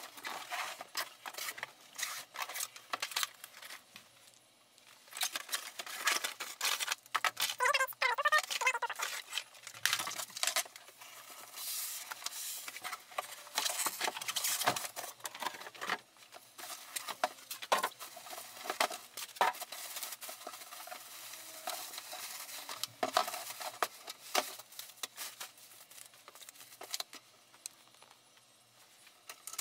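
A printer being unboxed by hand: cardboard box flaps and packing handled, a plastic bag crinkling and foam inserts rubbing as the printer is lifted out, with scattered knocks and clicks. A brief squeak comes about eight seconds in.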